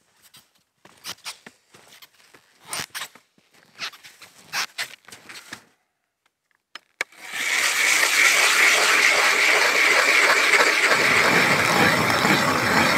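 Footsteps crunching on snow, then from about seven seconds in a hand-cranked ice auger grinding steadily down into lake ice.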